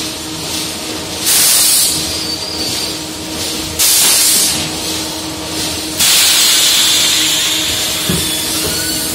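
Double-station extrusion blow moulding machine making 5-litre plastic cans, running with a steady hum and a low tone. Three sharp hisses of compressed air come from it about two and a half seconds apart, the last one longer and tailing off.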